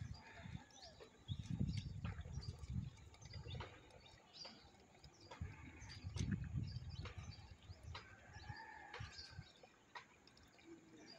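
Small birds chirping in short, scattered calls, mixed with a few stretches of low rumbling noise on the microphone.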